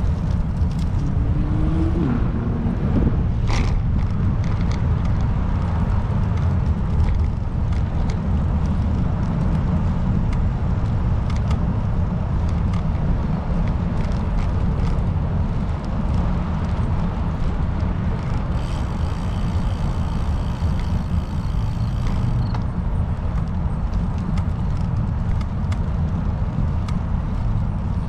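Steady low rumble of road and wind noise from travelling along at speed, with no clear change through the stretch.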